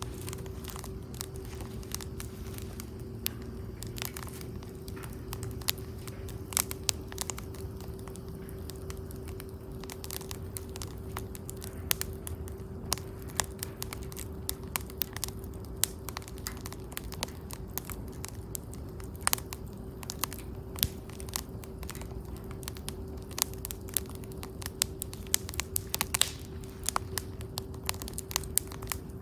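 Wood fire crackling, with irregular sharp pops and snaps, a few much louder than the rest, over a steady low hum.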